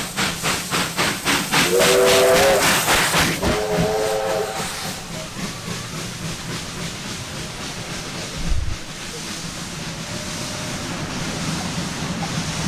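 Double-headed Victorian Railways R-class steam locomotives passing beneath, working hard with rapid exhaust beats, about four to five a second, while the whistle sounds two short blasts. After about five seconds the exhaust fades into a steady rumble and hiss of carriages rolling past, with one brief low thump past the middle.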